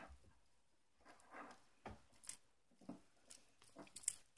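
Near silence, with a handful of faint, scattered clicks and soft rustles: hand-handling noise from fingers holding a spinning fidget spinner.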